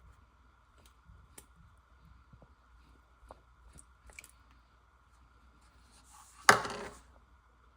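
Light scattered clicks and taps of kitchen work, then one loud sudden clatter about six and a half seconds in that dies away within half a second.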